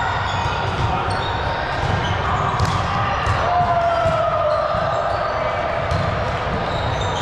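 Sneakers squeaking on a gym floor during an indoor volleyball rally, with long gliding squeaks in the middle and a few sharp ball hits about two and a half to three seconds in.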